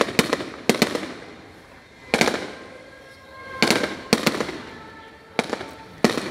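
Fireworks shells bursting overhead, about seven sharp bangs at uneven intervals, each trailing off in a crackle.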